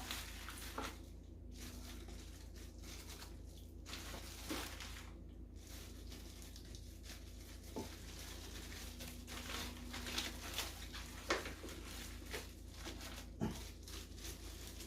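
Slices of pear being placed into a rice cooker's inner pot on top of other cut vegetables: faint rustling with a few soft, scattered knocks a couple of seconds apart.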